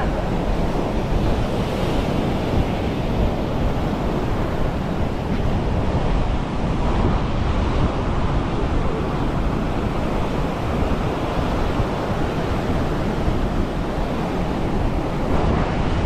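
Ocean surf washing onto a sandy beach in a steady, even rush, with wind buffeting the microphone.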